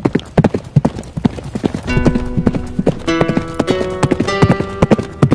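Horse hooves clip-clopping as a sound effect, about four beats a second. About two seconds in, harpsichord music comes in over them.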